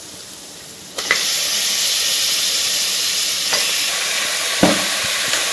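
Raw mutton pieces dropped into hot oil and ginger-garlic paste in a pressure cooker, starting to sizzle loudly about a second in, with a couple of knocks of the steel ladle against the pot as it is stirred.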